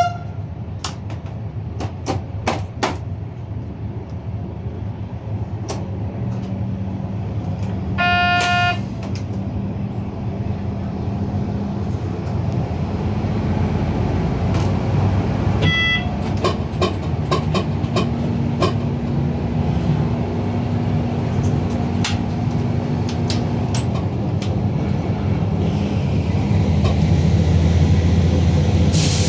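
Train running along the track, heard from the driver's cab: a steady low rumble with the clicks of wheels over rail joints. About eight seconds in, the train's horn sounds one short single-tone blast, and a brief higher tone follows near the middle.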